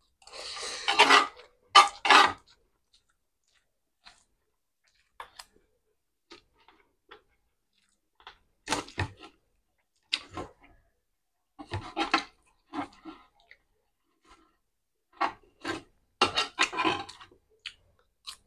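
A person chewing mouthfuls of pancit noodles and crispy scrambled egg close to the microphone, in short irregular bursts with silent gaps between, with a metal spoon and fork clinking and scraping in the pan. The loudest bursts come in the first couple of seconds.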